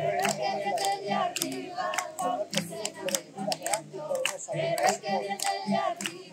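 Congregation clapping in time, about two to three claps a second, with voices singing along.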